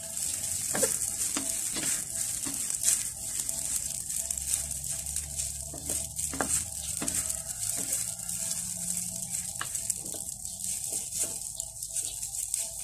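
Wonton noodles sizzling as they are stir-fried dry in a wok, with irregular clicks and scrapes from the wooden spatulas tossing them against the pan.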